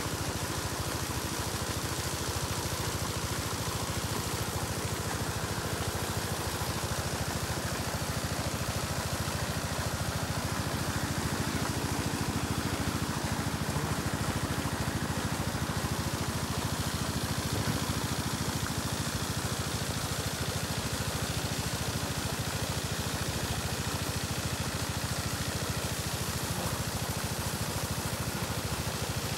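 An engine running steadily at a constant speed, a low hum that does not change.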